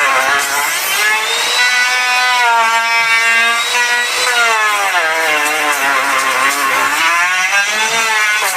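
Electric woodworking power tool motor whining while cutting wood, its pitch sagging and recovering twice as the blade takes load.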